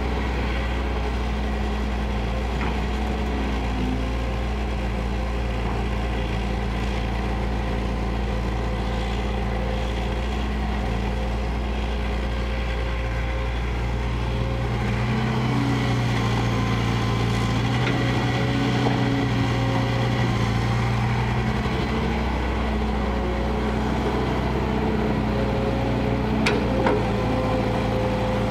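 Kobelco hydraulic crawler excavator's diesel engine running steadily while it swings and works its boom, growing a little louder about halfway through. A single sharp knock near the end.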